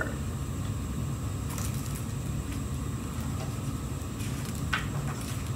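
Steady low room hum, with faint paper rustling as a picture book's page is turned, about four to five seconds in.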